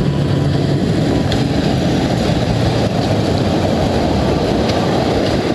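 Heavy vehicle engine running, a steady low rumble.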